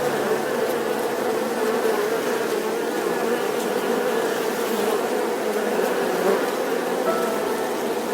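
Insects buzzing: a steady, even buzz with no breaks.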